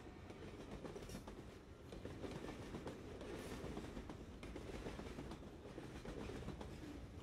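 Train running along the track: a steady low rumble with scattered clicks from the wheels on the rails.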